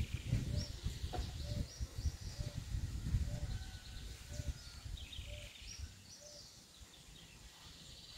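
Outdoor ambience by a pond: wind rumbling on the microphone, birds chirping, and a short low call repeated a little under once a second that stops about two-thirds of the way through. The wind dies down over the second half.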